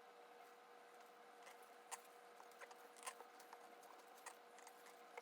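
Faint, scattered clicks and small creaks of a tap being turned by hand as it cuts thread into aluminium, over a steady faint hum.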